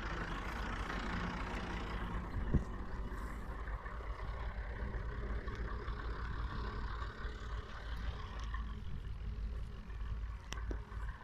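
Steady low drone of a farm machine's engine running in the distance, with a single sharp knock about two and a half seconds in.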